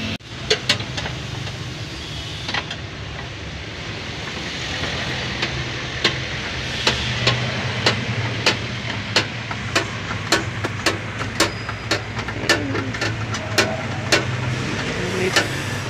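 Steady low hum of the Toyota Revo running. Over it come sharp plastic clicks and taps as dashboard trim, wiring connectors and fuses are handled, growing frequent from about six seconds in.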